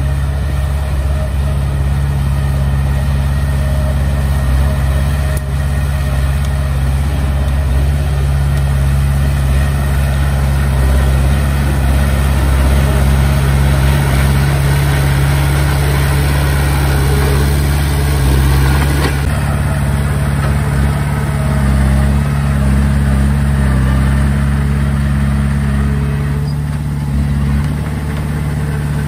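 Diesel engine of a Komatsu D20P bulldozer running steadily with a deep, even drone.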